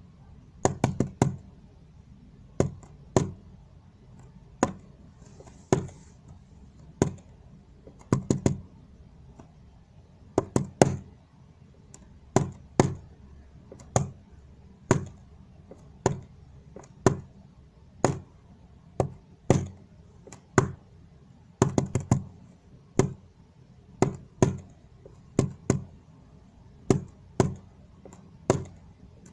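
Sharp taps on a hard surface in short clusters and single strokes with uneven pauses between them, tapping out a Morse code message that spells "HAMBURGER HELP ME".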